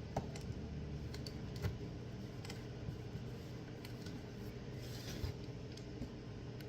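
A knife cutting open a cardboard box: scattered small clicks and scrapes, with a longer scratchy rasp about five seconds in.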